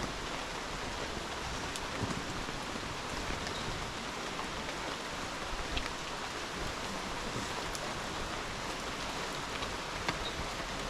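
Steady rain: an even hiss with a few louder drops ticking now and then.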